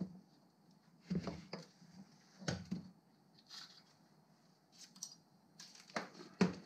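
A series of light clicks and knocks from a Sachs moped engine case and its stator wiring being handled and moved about on a steel-topped workbench.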